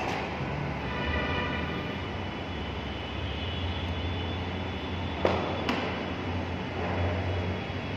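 Two sharp knocks close together about five seconds in: a cricket ball pitching on the artificial turf and smacking into wicket-keeping gloves. A steady low hum runs underneath.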